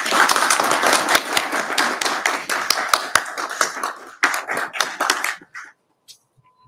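A small group applauding, a dense patter of hand claps that thins out after about four seconds and stops about five and a half seconds in.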